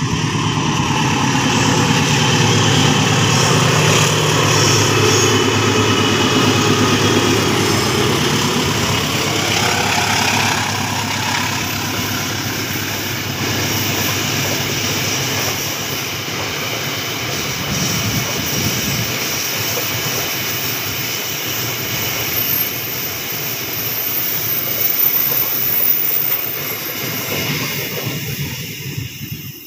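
Diesel locomotive passing close by, its engine loud for the first ten seconds or so and falling in pitch as it goes by. A long train of rail tank wagons follows, with a steady rhythmic clatter of wheels over the rail joints.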